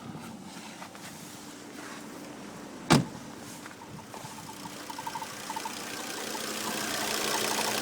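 A car, with one loud thump about three seconds in. Its running noise then grows steadily louder, with a steady hum and quick light ticking.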